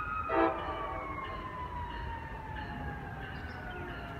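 An emergency-vehicle siren wailing, its tones slowly sliding down in pitch. A short, loud pitched blast cuts through about half a second in.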